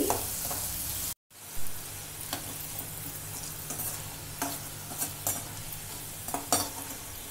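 Batter-coated chicken strips deep-frying in hot oil with a steady sizzle, while a perforated metal skimmer stirs them and knocks against the pan several times. The sound cuts out for a moment about a second in.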